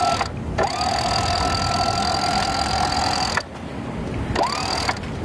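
Electric sheet winch on a Jeanneau 449 whining as it winds in the mainsheet, run in spurts: a longer run of about three seconds, then short stop-and-go runs. Each start rises in pitch as the motor spins up.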